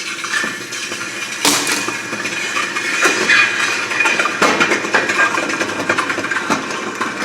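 Red-hot brass casting quenched in a bucket of cold water, sizzling and boiling with frequent sharp pops, a stronger burst about a second and a half in.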